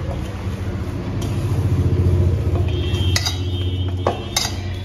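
Hands kneading stiff dough in a stainless steel bowl: a few sharp knocks and clinks of hand and dough against the steel, over a low steady rumble that swells about two seconds in.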